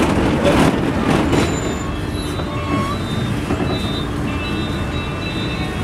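Cabin noise of a Samco city bus on an Isuzu chassis under way: steady engine and road rumble, with clattering rattles in the first second or so.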